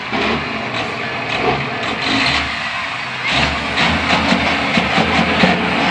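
Diesel engine of a long-hood semi-truck tractor with twin chrome stacks under hard throttle, blowing black smoke, growing louder about three seconds in as it pulls past.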